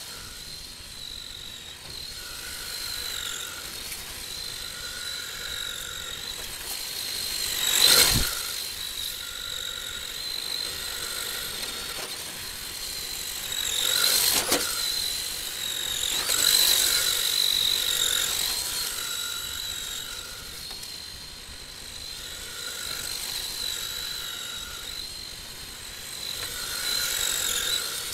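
HPI E10 RC drift car's electric motor and drivetrain whining high, the pitch rising and falling with the throttle as it drives and drifts; the whine is loudest as the car passes close. Two sharp knocks cut in, the louder one about eight seconds in and another about fourteen seconds in.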